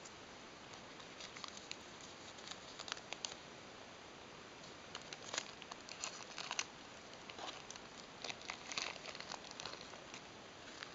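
Thin paper wrapper being peeled by hand off the bottom of a steamed bun: irregular clusters of crinkling and light tearing, starting about a second in and stopping near the end.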